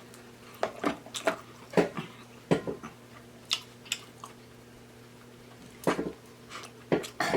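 Close-miked chewing and lip-smacking of seafood: irregular short, wet clicks and smacks, with a pause of about a second and a half in the middle.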